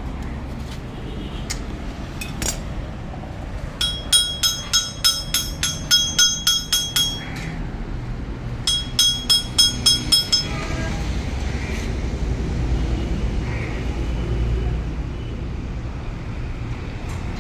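Rapid metallic clinking, about four ringing strikes a second, in two runs: one about four seconds in lasting some three seconds, and a shorter one around nine seconds in. A steady low rumble runs underneath.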